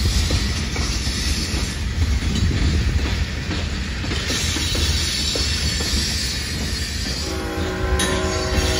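Freight train's tank cars and covered hopper cars rolling past close by: a steady, loud rumble with rail and wheel noise. About seven seconds in, a steady chord of several held tones joins it.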